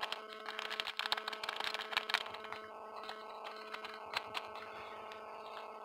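Rapid light ticks and rustles of a paper packet of grated Parmesan being shaken and tapped out over a pan, dying away about halfway through, over a steady low hum.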